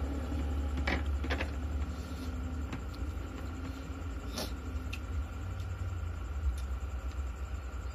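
A steady low hum under a few light clicks and taps from hand-eating at a table, with food taken from the dishes and chewed.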